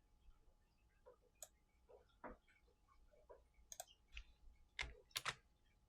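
Faint, irregularly spaced computer mouse clicks, with a louder pair about five seconds in.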